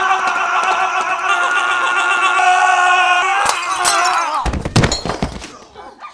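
A man's long, sustained scream held at a steady pitch, which falls away after about three and a half seconds, followed by several heavy thuds of bodies hitting something during a scuffle.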